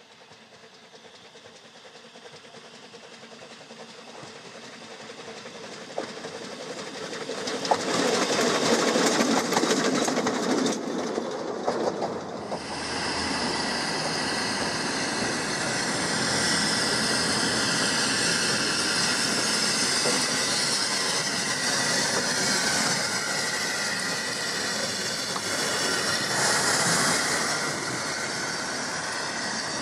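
Ffestiniog Railway double Fairlie 0-4-4-0T steam locomotive Earl of Merioneth running with its train. It grows steadily louder as it approaches, with wheels clicking over rail joints, then passes close by, with a short burst of hissing steam near the end.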